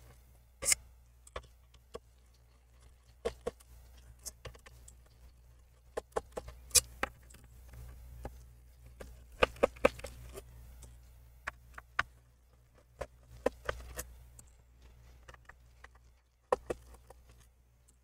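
Phillips screwdriver backing out the bottom-cover screws of a Lenovo Legion 5 Pro laptop: scattered small clicks and taps of the metal tip on the screws and the plastic case, with the sharpest few around the middle.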